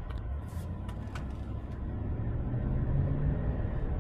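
Cabin sound of a Chevy Silverado 1500's 5.3-litre V8 and tyres as the truck pulls away from a stop and picks up speed, a low rumble that grows steadily louder. A few sharp clicks sound in the first second or so.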